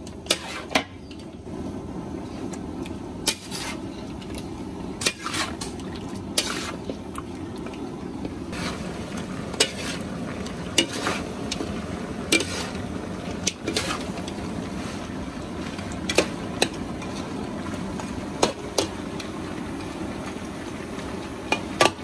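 Metal spatula stirring and scraping crocodile meat in a steel wok, with about a dozen sharp, irregular knocks of the spatula on the pan. Steady sizzling of the meat frying runs underneath.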